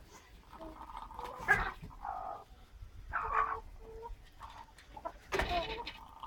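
A sleeping chicken snoring: a run of short, soft pitched snores, about five in a few seconds.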